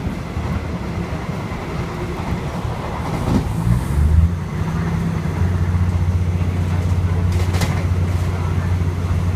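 Passenger train running, heard from inside a carriage: a steady low rumble of wheels on rails with a few sharp clicks. About halfway through, a steady low drone comes in and the sound gets a little louder.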